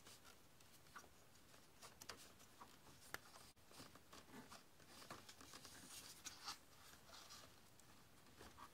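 Near silence with faint, scattered light clicks and rubbing as a rubber hose is worked by hand along a plastic engine intake manifold.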